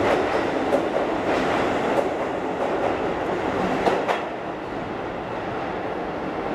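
Keisei 3600 series stainless electric train running through an underground station, a steady rumbling rush with a few sharp clicks from the wheels. The noise eases a little after about four seconds.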